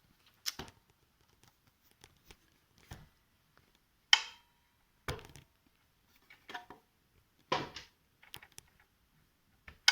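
Irregular clicks and light knocks from small hard parts being handled, about a dozen in all. The loudest comes about four seconds in and rings briefly.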